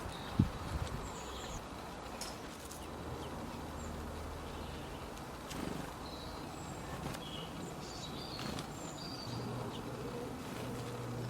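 Birds at a feeding spot: scattered short, high bird chirps over a steady outdoor hiss, with a soft thump just after the start. A low, steady wing buzz, as of something flying close to the microphone, comes in and grows louder near the end.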